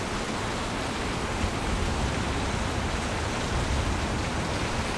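Heavy downpour: rain falling steadily on wet pavement, an even rushing hiss.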